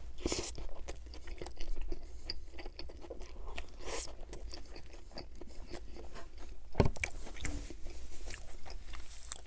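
Close-miked biting and chewing of a Burger King Whopper Jr. burger: a steady run of wet mouth clicks and soft crunches, with a couple of louder clicks about four and seven seconds in.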